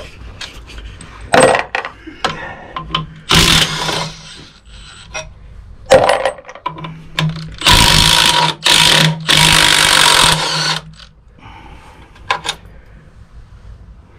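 Metal clinks, knocks and clatter of tools and small engine parts being handled, with a short loud hiss about three seconds in and a longer one of about three seconds near the middle.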